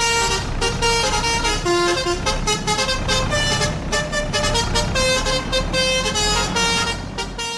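A multi-tone vehicle horn plays a quick tune of changing notes over a steady low engine rumble.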